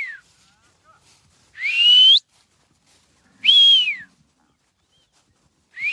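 A herder's sharp mouth whistles driving cattle: three loud whistles about two seconds apart, the first and last rising in pitch and the middle one rising then falling away.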